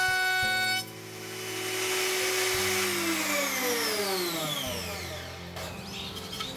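Router under a table plate with a chamfer bit, running steadily as plywood is fed across it. The cut ends about a second in, and the motor then winds down with a falling whine and goes quiet after about five seconds.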